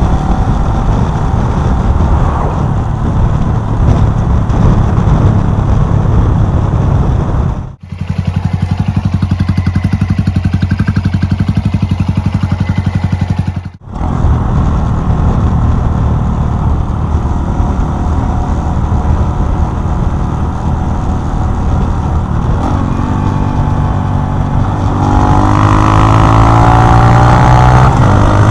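Honda Monkey 125's single-cylinder engine running as the bike is ridden, with wind noise on the microphone. Near the end the engine revs up and its pitch rises as the bike accelerates.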